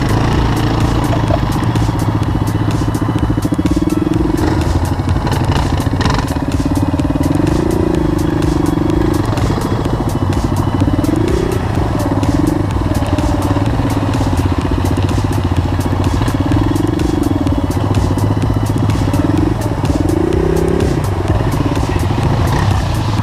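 Single-cylinder Suzuki DR dual-sport motorcycle engine running at low trail speed, its note rising and falling with the throttle a few times, with a light clatter throughout.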